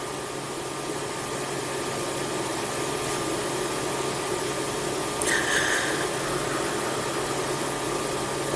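Steady hiss with a low hum of room tone, like an air conditioner, and a brief soft sound about five seconds in.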